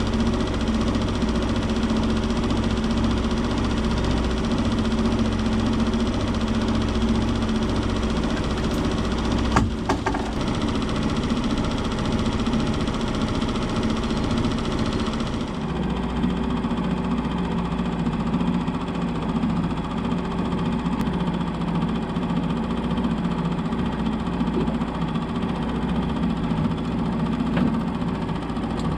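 Boat outboard motor running steadily at low trolling speed, with a brief sharp click about a third of the way in and a slight change in its tone about halfway through.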